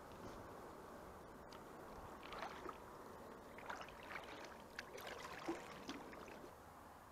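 Kayak paddle strokes: the blades dip and pull through the water with soft splashes and drips. The strokes start about two seconds in and stop about six seconds in, over a faint steady background.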